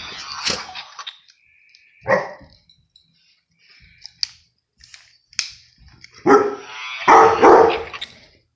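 Pit bull barking in play, in bursts: one at the start, one about two seconds in, and a longer run of barks near the end, with a couple of sharp clicks in between.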